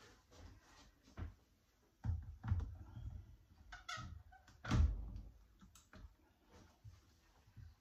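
Glass blender jar full of salsa being handled and set onto its motor base: a few scattered knocks and low clunks, the loudest about five seconds in. The motor is not running.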